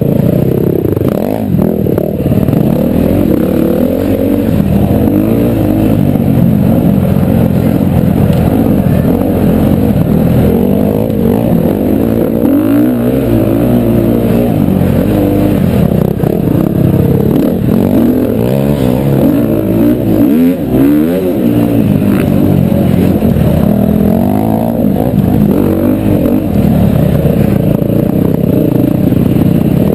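2011 KTM 350 XC-F's single-cylinder four-stroke engine ridden hard offroad, revving up and down constantly, its pitch rising and falling every second or two with throttle and gear changes, heard from the rider's helmet.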